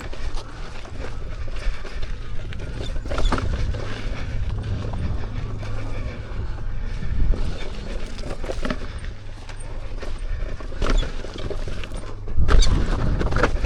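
Electric unicycle ridden over a rough, rocky dirt trail: steady wind rumble on the microphone with tyre noise, and a few sharp knocks from bumps, getting louder and rougher near the end.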